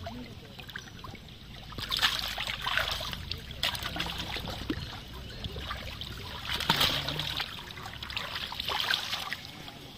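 Water splashing and sloshing as large silver carp thrash in a cast net in shallow water and hands move among them, with sharp splashes about two seconds in, again around three and a half seconds, and near seven seconds.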